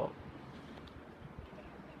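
Faint, steady outdoor background noise with a low steady hum and no distinct events.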